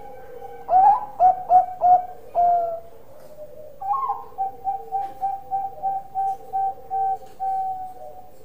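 Bangkok-type zebra dove (perkutut) cooing: a burst of five loud notes, then after a short pause a longer run of about a dozen quick, evenly spaced coos.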